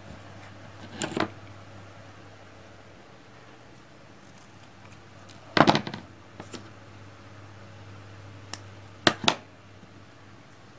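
Workbench handling noises: a few short clicks and clatters as jumper wire and small parts are pushed into a solderless breadboard and tools are handled on a cutting mat. The loudest clatter comes about halfway through and a quick pair near the end, over a faint steady low hum.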